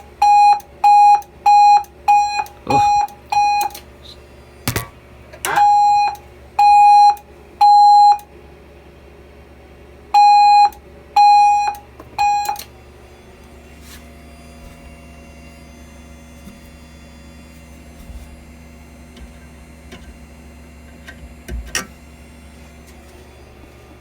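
Voice-evacuation fire alarm panel's speaker sounding its beep tone, fast short beeps about three a second, then after a click, longer beeps in groups of three, the temporal-three evacuation pattern. The beeping stops about halfway through, leaving a low hum and a click near the end.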